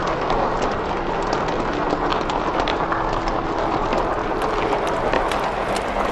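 Large crowd's steady noise of many voices with scattered hand claps, the claps growing more frequent from about four seconds in.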